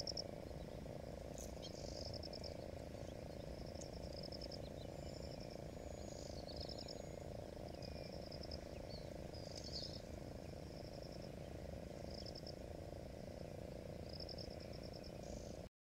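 Wetland frogs calling in short, rapid trills that repeat every second or two, with a few brief bird calls over them. Underneath is a steady low background noise.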